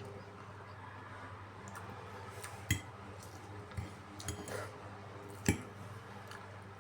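Utensils clinking against a dish during a meal, with a few sharp clinks. The two loudest come about three seconds apart, over a steady low hum.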